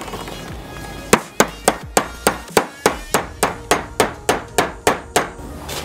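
A hammer striking in a quick, even series of about fifteen sharp blows, roughly three or four a second, starting about a second in and stopping shortly before the end.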